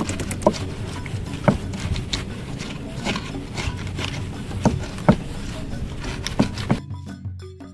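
Irregular knocks and scraping over a steady rushing noise, which cut off about a second before the end as background music comes back in.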